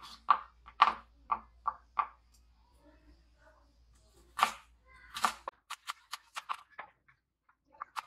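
Chef's knife chopping carrots on a wooden cutting board: a series of sharp knife strikes on the board, about two a second at first, then quicker, lighter chops at about four a second in the second half.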